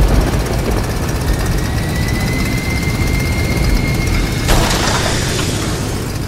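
A vehicle engine sound: a steady low rumble with a faint whine rising slowly in pitch, then a louder rushing noise cutting in suddenly about four and a half seconds in.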